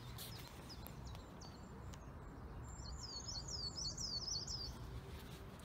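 A songbird singing a quick run of repeated high chirping notes about halfway through, over a steady low background rumble.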